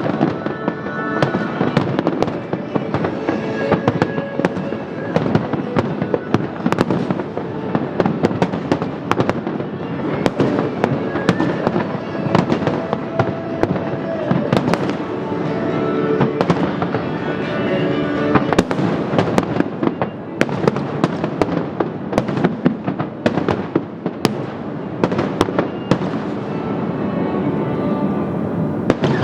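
Fireworks bursting in rapid, continuous succession, many sharp bangs and crackles one after another, over music played along with the show.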